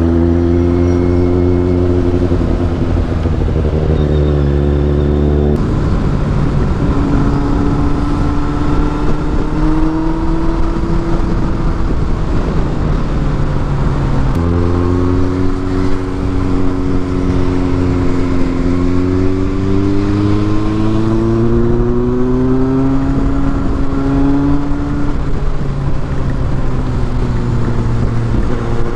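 Kawasaki Z800's inline-four engine on the move, its pitch climbing under throttle and dropping back at each gear change, several times over.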